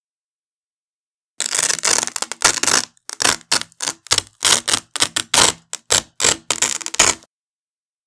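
Yellow Velcro strap being ripped off a wide black Velcro strap in a string of short, crunchy tearing rips. It starts about a second and a half in with one longer tear, then goes on as quick separate pulls, about three a second, stopping a second before the end.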